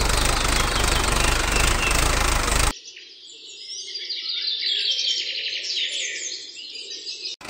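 A tractor engine sound runs with a heavy low rumble for almost three seconds, then cuts off abruptly. Birds then chirp and twitter for the rest.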